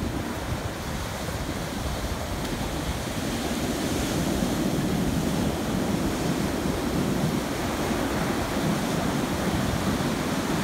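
Rough ocean surf breaking and washing up the beach in a steady hiss, growing a little louder about three seconds in.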